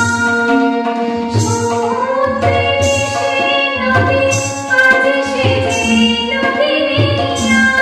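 A woman singing a Bengali song to tabla and a keyboard instrument. The voice glides between held notes over sustained keyboard notes, and the tabla's bass drum keeps a steady repeating beat.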